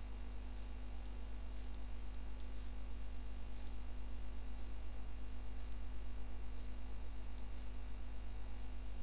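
Steady low electrical mains hum with a faint even hiss, the recording's background noise with no voice.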